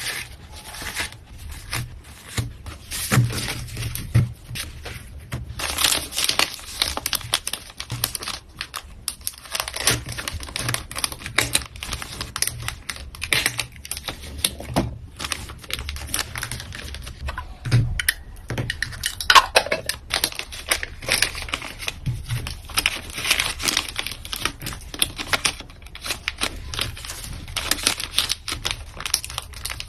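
Packaging being handled by hand for an order: plastic crinkling and rustling, with quick irregular clicks and taps.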